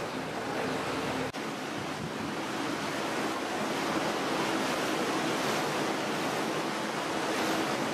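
Steady rush of water and wind heard from aboard a moving river tour boat, with a faint steady hum underneath. There is a brief dropout about a second in.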